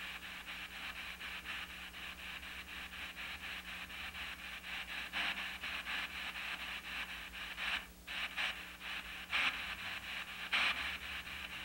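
P-SB7 spirit box sweeping down the FM radio band: rapid, evenly chopped bursts of radio static, several a second, played through a small amplifier, with a few louder bursts along the way.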